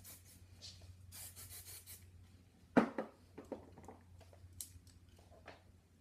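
Aerosol hairspray can spraying, a brief burst at the start and a longer hiss about a second in. Then a sharp knock about three seconds in, followed by a few softer clicks and knocks.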